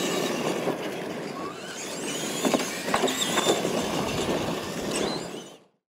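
Radio-controlled electric monster trucks racing on dirt: high motor and gear whine over tyre and track noise, with a few sharp knocks about two and a half to three and a half seconds in. The sound fades out near the end.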